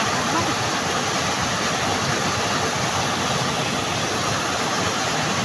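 Steady rush of river water pouring and flowing over rocks, a continuous even noise.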